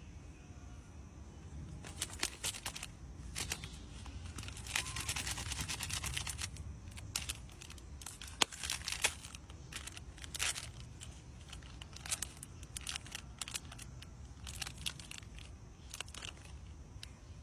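Irregular rustling and crinkling, like something being crumpled or torn, broken by scattered sharp clicks.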